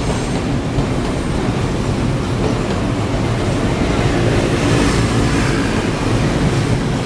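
Taiwan Railways local electric multiple-unit train arriving at the station, its wheels rumbling along the track; the sound swells a little about four seconds in.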